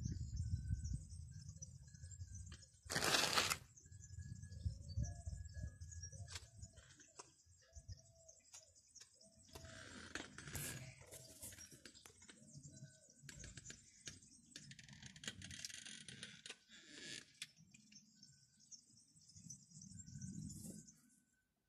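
Quiet outdoor ambience with scattered light clicks and taps and faint bird chirps, broken by one short loud burst of noise about three seconds in.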